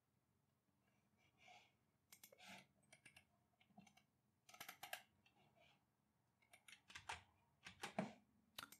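Near silence broken by faint, scattered clicks of a computer keyboard and mouse, coming a little thicker and louder in the last couple of seconds.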